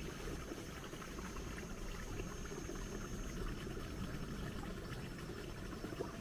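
Faint steady outdoor background rush with small crackles, and a thin, high, steady tone that stops about halfway through.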